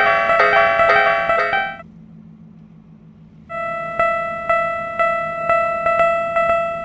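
Synthesized keyboard background music: a quick melodic pattern breaks off under two seconds in, and after a short lull a single bright note repeats about twice a second.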